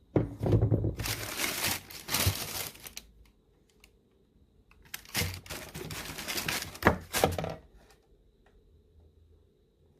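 Paper crinkling and rustling as sneakers are handled and unwrapped from their box, in two stretches of a few seconds each with a few sharp knocks among them.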